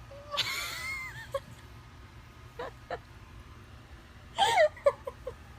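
A pet's short, high-pitched calls, several in a row with wavering, bending pitch; the loudest call comes about four and a half seconds in and is followed by a few quick short ones.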